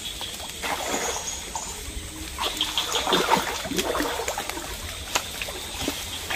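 A person wading through shallow swamp water, with irregular splashing and sloshing at each step.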